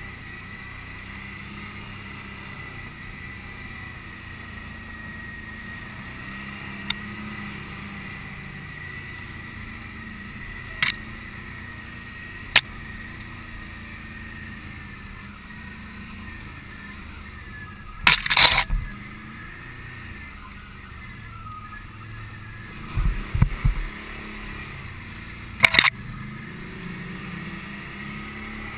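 Can-Am Outlander ATV engine running steadily while riding a rough, snowy trail, with a string of sharp knocks and rattles from the machine over bumps, the loudest clusters in the second half.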